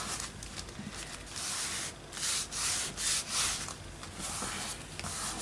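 Freshly glued paper being rubbed down flat onto a journal page: repeated dry, scratchy rubbing strokes, about two a second.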